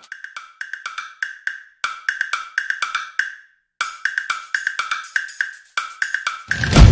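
Channel intro jingle: quick wood-block-like percussive clicks with a short pitched ring, in a brisk rhythm broken by a brief pause about halfway. A loud, deep sound swells in near the end.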